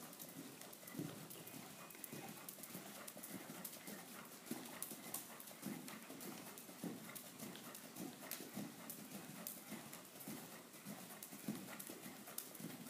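Muffled hoofbeats of a Swedish Warmblood horse cantering on sand arena footing, a steady run of soft thuds.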